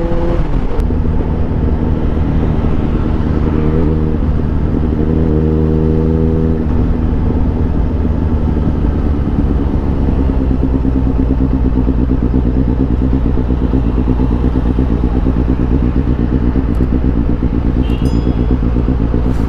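Suzuki GSX-S750's inline-four engine with a MIVV Suono slip-on exhaust, heard under way: the revs rise and then drop right at the start. It then runs at a steady note, changing pitch about six and a half seconds in and again around ten seconds in.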